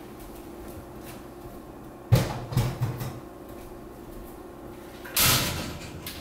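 A door or gate being handled: a sharp knock about two seconds in and a couple of lighter bumps, then a scraping rush lasting about a second near the end.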